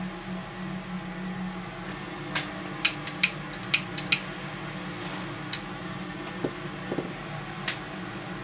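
Solder fume extractor fan running steadily at speed 4, a hum with a few steady tones. About two seconds in comes a quick run of sharp clicks as smoke matches are handled in a tray, with two more single clicks later.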